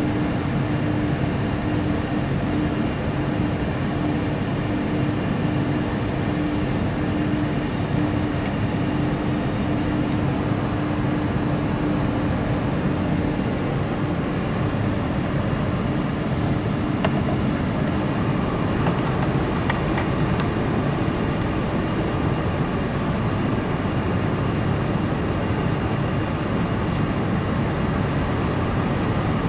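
Steady cabin rumble inside a Boeing 747-400 on the ground before its takeoff roll, from the idling engines and cabin air system, with a steady low hum tone that fades about halfway through.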